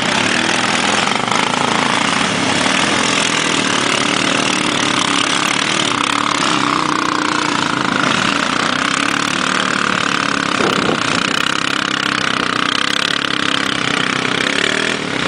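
4x4 ATV engine running steadily at low revs, with no big revving.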